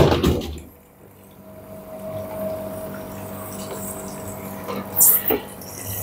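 Siemens condenser tumble dryer's water pump running, a steady hum with water flowing as it pumps the collected condensate up to the water container drawer. A short sharp clatter about five seconds in.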